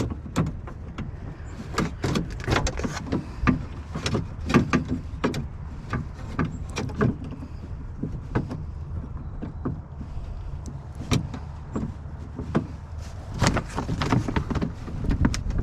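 Irregular clicks, knocks and rattles of hands working inside a pickup's rear door shell, pushing the new lock actuator's linkage rods into their plastic clips, over a steady low hum.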